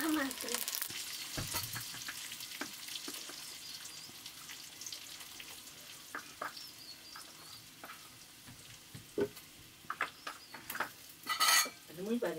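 Green vegetables sizzling in hot oil in an iron wok, with stirring. The sizzle is strongest at first and thins out, with scattered clicks and knocks and a short louder burst of noise near the end.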